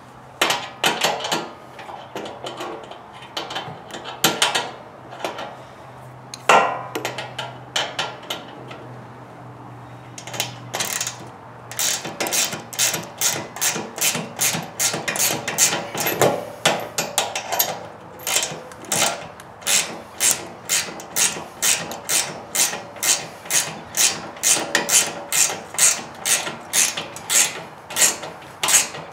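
Ratcheting wrench clicking as it tightens the nut on a generator wheel's axle bolt. It goes in short back-and-forth strokes, irregular at first, then a steady run of about two strokes a second.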